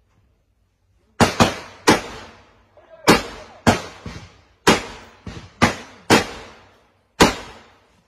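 Close rifle fire. About ten single gunshots come at irregular intervals, starting about a second in, and each one has a short echoing tail.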